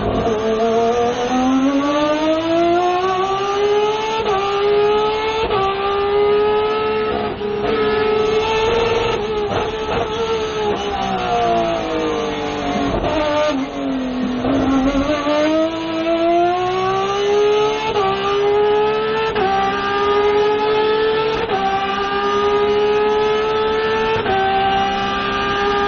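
Race car engine accelerating through the gears: its pitch climbs and dips slightly at each upshift. About halfway through it falls away as the car slows and downshifts, then climbs again through several more shifts.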